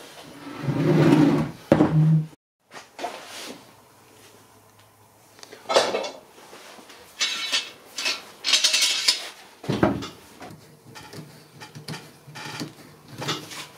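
Wooden chair frame being handled on a workbench, with knocks, scrapes and metallic clinks and clicks as a steel bar clamp is fitted and tightened on it. The sounds come in separate bursts, with a brief dead gap a little after two seconds in.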